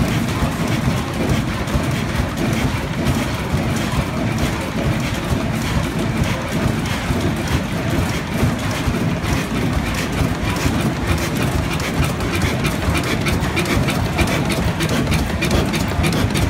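1939 Ruston Hornsby HRX size 3 single-cylinder horizontal stationary diesel engine running steadily, with a continuous mechanical clatter over a low rumble.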